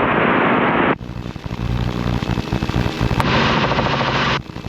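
Radio hiss that cuts off abruptly about a second in, leaving the steady low drone of the helicopter's engine and rotor heard over the intercom, with a second burst of hiss for about a second near the end.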